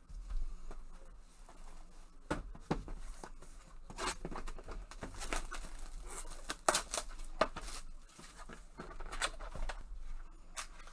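Plastic shrink wrap being torn and crinkled off a sealed trading-card box, with handling knocks of the cardboard box. The crackles and clicks come irregularly, starting about two seconds in.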